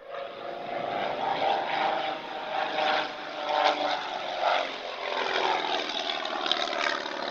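Propeller airplane engine running steadily in flight, with its pitch gliding slightly in places.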